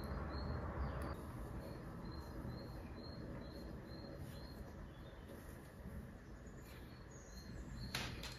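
Faint room tone under a series of short high chirps, about two to three a second, with a pause partway through. A couple of sharp clicks come near the end.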